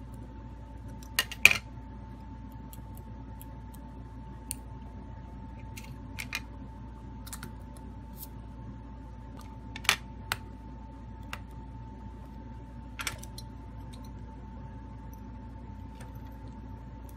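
Scattered clicks and taps of a smartphone's glass back cover and a precision screwdriver being handled and set down on a repair mat, the loudest about a second and a half in and again near ten seconds, over a steady low hum with a faint steady tone.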